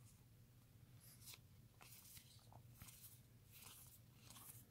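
Near silence, with a few faint, short rustles of trading cards being slid and flipped through by hand over a low steady hum.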